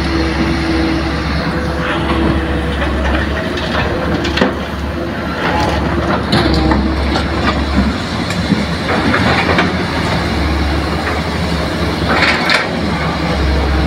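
Hitachi hydraulic excavator's diesel engine running steadily under load, with irregular knocks and crunches as its bucket digs soil and dumps it into a dump truck.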